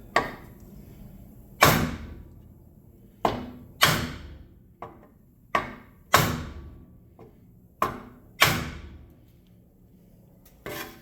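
About nine hard hammer blows on the bent lip of a motorcycle's cast aluminium wheel rim, irregularly spaced with pauses between them, each ringing briefly: knocking out a dent to straighten the rim.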